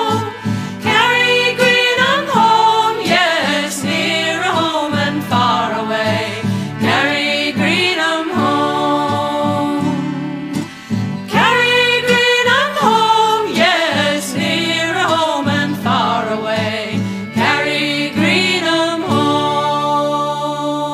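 A folk song's chorus sung with instrumental accompaniment, ending on a held chord.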